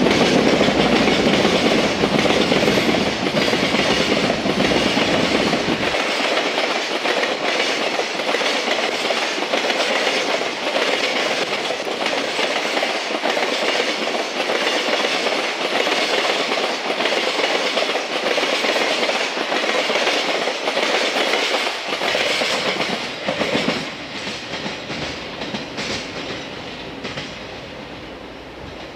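Freight train's container wagons rolling past, wheels clacking rhythmically over rail joints. A heavy low rumble drops away about six seconds in, and the sound fades as the end of the train moves off.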